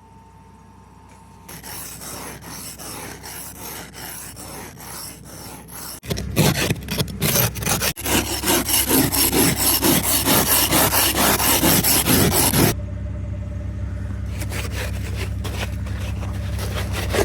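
Ice scraper scraping ice and snow off a car's windows in rapid repeated strokes, growing louder about a third of the way in. Under it, from about six seconds in, the car's engine runs steadily at idle.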